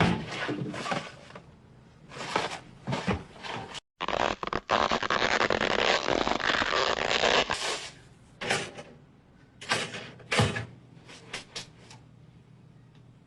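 Dubbed cartoon sound effects: a string of short comic noises. A loud hissing, noisy effect starts abruptly about four seconds in and runs for about three and a half seconds, then more short bursts follow.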